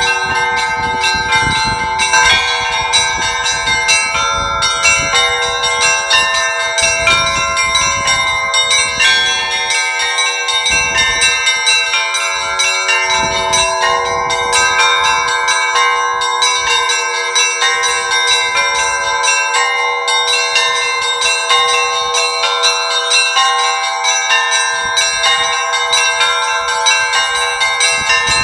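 Orthodox church belfry bells, new and old, rung together in a continuous peal. Quick repeated strikes on the smaller, higher bells sound over the lower bells, and the notes overlap and hang on with no pause.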